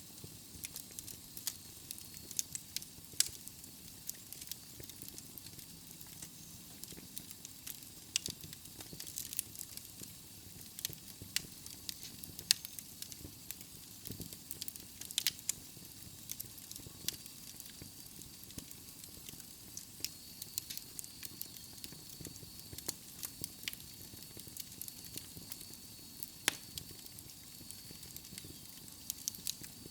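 Wood logs burning in a fireplace, crackling with irregular sharp pops and snaps over a soft steady hiss.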